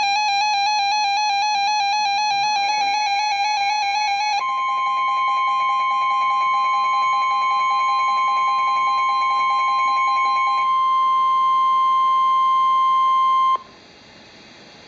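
A warbling electronic alert tone, then from about four seconds in the steady 1050 Hz NOAA Weather Radio warning alarm tone, which carries on alone and cuts off suddenly a little over a second before the end, leaving faint radio hiss.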